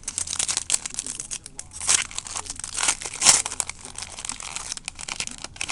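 Trading-card pack wrapper being torn open and handled: dense crinkling and crackling with sharp clicks, loudest about two seconds and about three seconds in.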